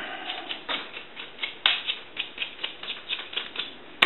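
Soldering gun tip being cleaned: a quick run of short scratchy strokes, about four or five a second, one a little louder near the middle.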